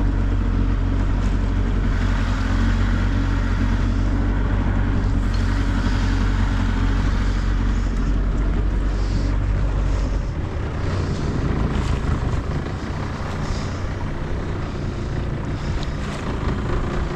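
Old Mariner outboard motor running with a steady low drone; it isn't running sweetly and doesn't sound happy, for a reason the owner can't place. About ten seconds in, the engine's note changes and gets a little quieter.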